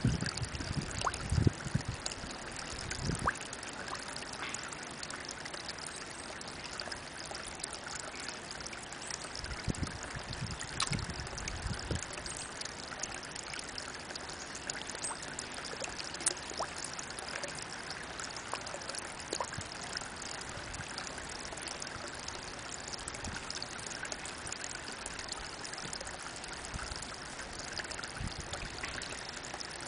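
Spring water trickling steadily as a thin stream falls from a mossy rock into a pond and splashes on the surface. A few low bumps sound near the start and again about ten seconds in.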